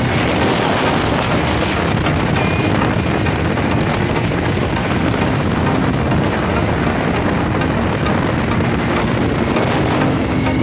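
Speedboat under way at speed on open water: a steady rush of engine, hull and spray noise with wind buffeting the microphone.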